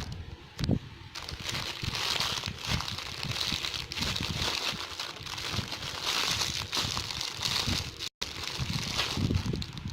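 Plastic packaging crinkling and rustling as it is handled, with irregular soft knocks of handling.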